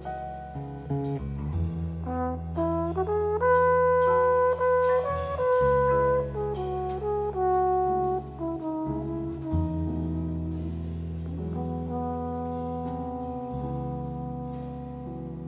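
Trombone playing a jazz melody of long held notes, climbing in a quick rising run about three seconds in to its loudest held note, backed by piano, electric bass and drums.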